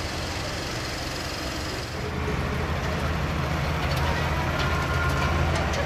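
Green John Deere tractor's engine running at the start of a tractor pull, growing louder about two seconds in.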